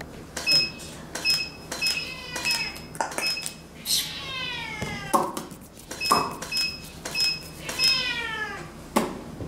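A tabby-and-white domestic cat gives two long meows whose pitch falls, about four and eight seconds in. Between them come many sharp clicks, most with a short high beep, from the photographer's camera gear.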